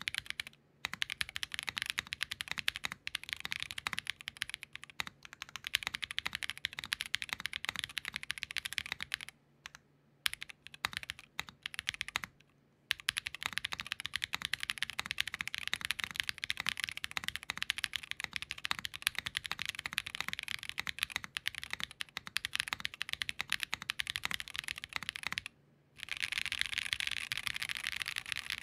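Fast typing on a KBDFans Tofu60 2.0 mechanical keyboard with lubed Built by Nim (BBN) linear switches, an aluminium plate and plate foam only, in its silicone bowl gasket mount: a dense run of keystrokes broken by a few short pauses. The switches give a slightly crackly sound, which the typist puts down to the switches rather than the board.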